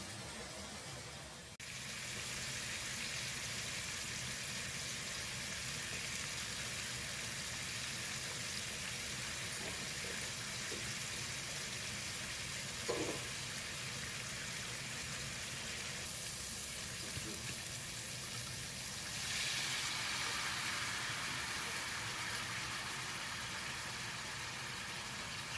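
Bone-in veal chops sizzling in a stainless steel frying pan, a steady hiss with one short knock about halfway. From about 19 seconds in the sizzling grows louder and brighter as a glass of white wine hits the hot pan.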